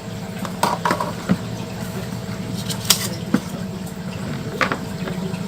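Light clicks and taps of an aquarium heater and its plastic and glass parts being handled, about half a dozen scattered knocks over a steady low hum.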